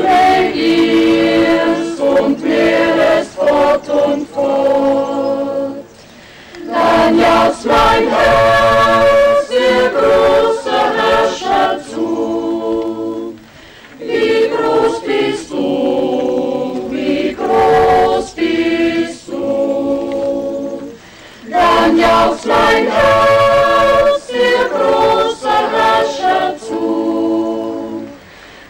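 Mixed choir of men's and women's voices singing without accompaniment, in long phrases of about seven seconds with short pauses between them.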